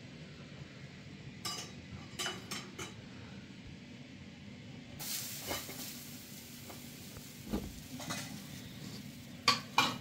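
Metal spoon and aluminium cooking pots on a gas stove clinking and knocking now and then over a faint steady hiss, with two sharper clinks near the end.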